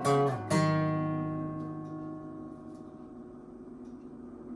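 Taylor acoustic guitar closing a song: a strum, then a final chord about half a second in that is left to ring and slowly fade out.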